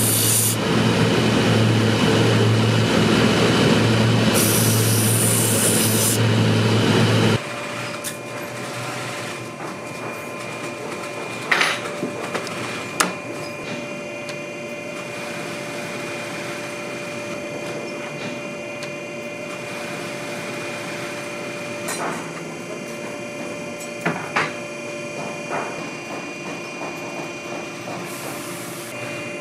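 A leather sanding machine's spinning abrasive drum running, with a rasping hiss twice as leather is pressed against it. The machine stops suddenly about seven seconds in. After that there is a steady workshop hum with a few light knocks.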